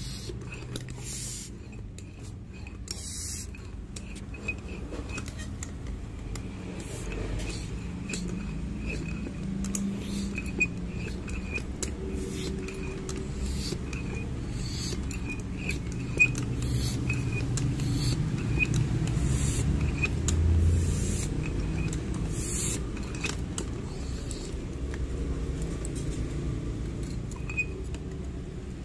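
Clicks, taps and rustles from a foot pump being handled, its hose and gauge moved about, over a steady low rumble.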